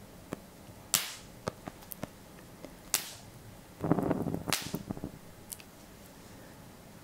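Burning juniper wood snapping and popping in a flame: two sharp cracks about two seconds apart, with small ticks between, and a short breath blown onto the smouldering stick about four seconds in, with another crack within it.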